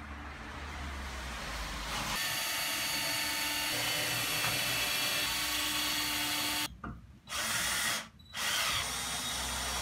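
Cordless drill running under load into the corner joint of a wooden cabinet. It runs steadily from about two seconds in and stops briefly twice near the end before starting again.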